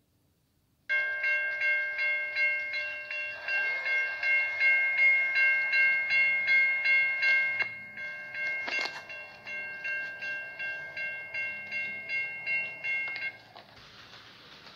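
A model-railroad sound unit plays a railroad warning bell. It starts abruptly about a second in and rings at a steady rate of about three strikes a second, then cuts off shortly before the end, leaving a faint hiss.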